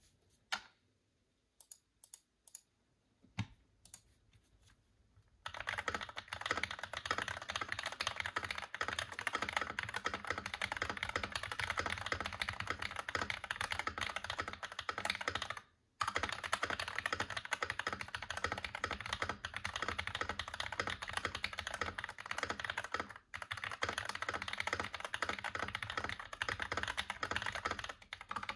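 Royal Kludge RK84 mechanical keyboard with lubed Glorious Panda tactile switches, foam-dampened case and PBT keycaps: a few single keystrokes, then fast continuous typing from about five seconds in, with a short break about halfway through.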